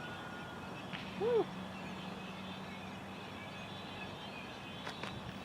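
Quiet outdoor background: a faint, steady low hum under a light hiss.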